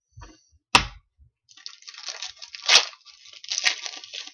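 Trading cards and their wrapping being handled: a sharp tap about a second in, then a couple of seconds of crinkly rustling with two sharper snaps.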